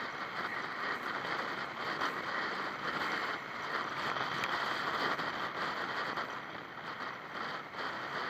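Steady road and wind noise of a vehicle driving through city traffic, an even hiss with no distinct engine note.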